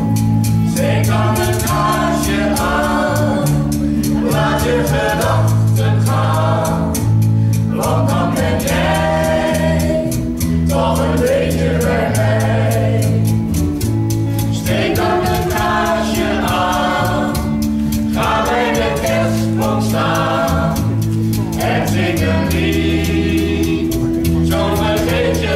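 A small mixed vocal group of men and women singing together in harmony, over instrumental backing with a bass line and a steady ticking beat.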